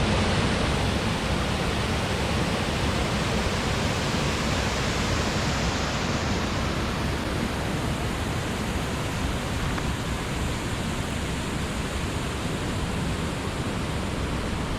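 Waterfall running, a steady, even rush of falling water.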